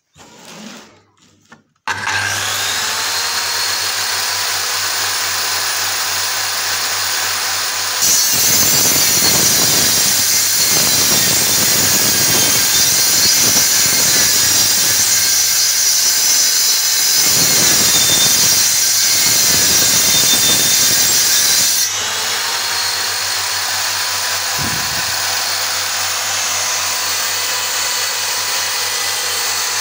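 Circular saw mounted upside down under a table starts about two seconds in and runs freely with a steady whine. It then cuts through a laminated particleboard panel for about fourteen seconds, louder and rougher while in the cut, and goes back to running freely.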